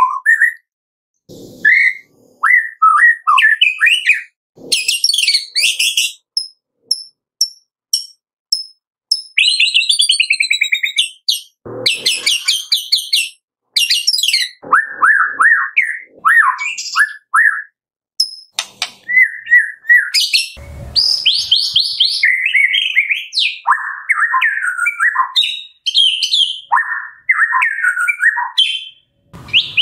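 White-rumped shama singing: a varied run of loud whistled phrases, sweeping notes and rapid trills, broken by short pauses between phrases.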